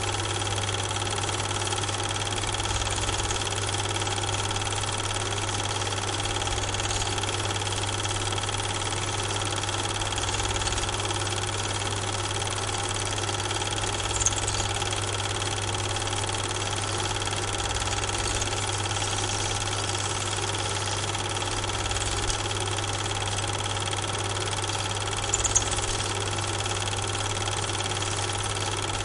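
Steady mechanical hum with several constant tones, broken only by a faint click about halfway through and another near the end. The film is silent, so this is background noise from the film's transfer and not the trains on screen.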